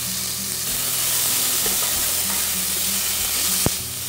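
Sliced sweet peppers and onion sizzling steadily in hot lard in a metal pot while a metal spoon stirs them, with one sharp knock near the end.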